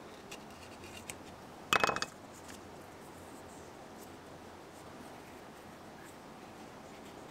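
A short clatter about two seconds in as a wooden-handled knife is set down on a wooden workbench, after a couple of light taps. The rest is quiet handling of leather.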